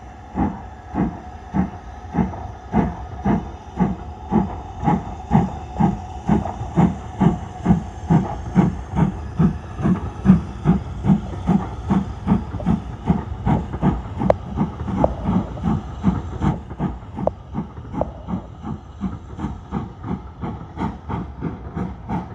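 Steam locomotive working hard, its exhaust chuffing in a steady rhythm that quickens from about two to about three beats a second as it gathers speed. The beats grow louder to about halfway, then fade slightly as it draws away.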